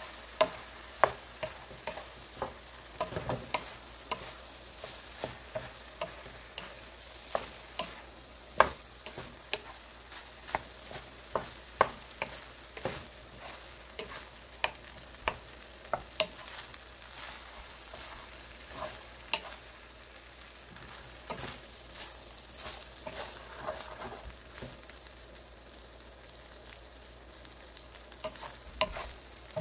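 Fried rice being stir-fried in a pan: a steady sizzle under irregular sharp clacks of the utensil against the pan, about one or two a second, thinning out for a while in the second half.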